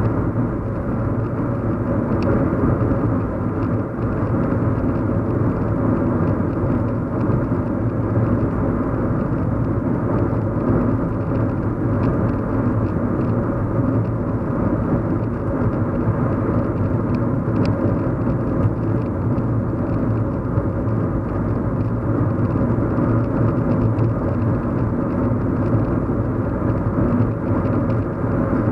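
Steady low hum and rumble of a car driving, engine and road noise heard from inside the cabin, even and unchanging.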